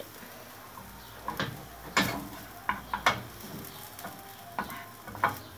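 Browned onions sizzling in a non-stick frying pan as a wooden spatula scrapes them out onto a plate, with about six sharp knocks of the spatula against the pan and plate.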